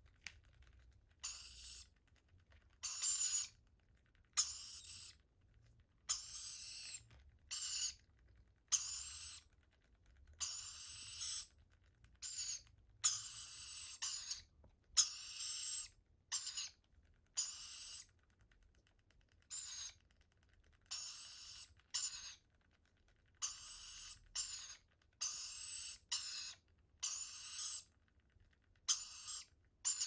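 Rainbow lorikeet chicks giving harsh, hissing food-begging calls as they are hand-fed, repeated about once a second; some calls are brief and others are held for up to a second.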